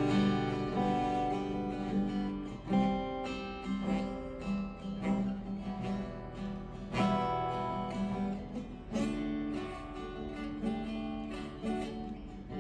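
Acoustic guitar strumming slow chords on its own, each chord struck and left to ring for a second or two.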